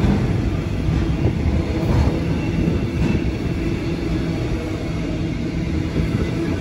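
Container freight train's wagons rolling past at speed: a steady rumble of steel wheels on rail with a low hum, and a few faint clacks as wheels cross rail joints.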